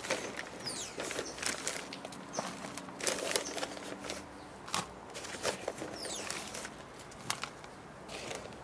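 Gloved hand digging into plastic bags of potting compost and scooping out soil: the bags crinkle and the soil rustles and scrapes in irregular bursts, with scattered sharp clicks.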